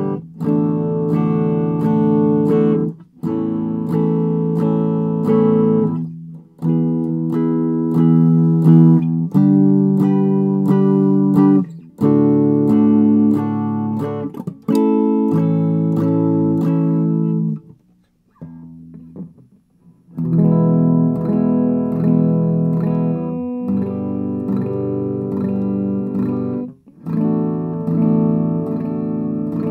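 Electric guitar strumming clean chords through an Ampeg V4 tube amp head, all tone controls set flat. The chords ring out one after another with short breaks, and there is a pause of about two seconds with only a few faint notes past the middle.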